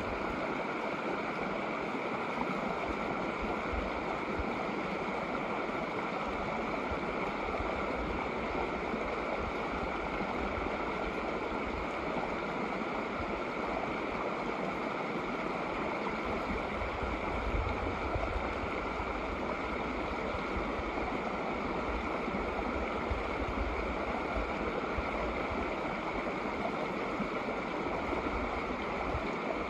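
Shallow snowmelt mountain creek flowing over rocks: a steady, even rushing and babbling of water.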